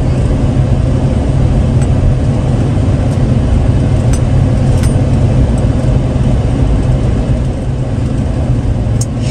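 Steady low rumble of a car driving at road speed, heard from inside the cabin: engine and tyre noise on the road.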